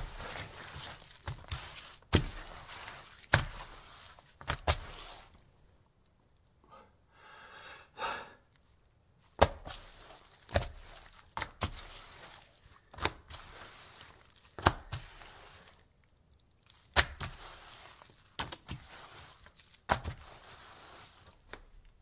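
Very wet dish towel wiped and pushed across a wooden table: a rubbing hiss broken every second or two by sharp slaps as the cloth is set down, with a short squelchy break near the middle.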